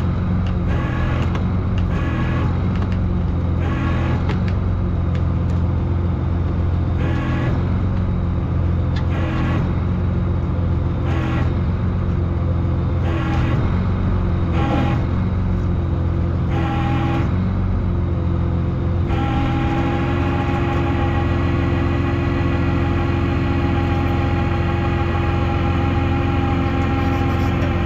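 Motor vehicle engine running steadily, a continuous low hum. About two-thirds of the way in the sound evens out and steady higher tones join it.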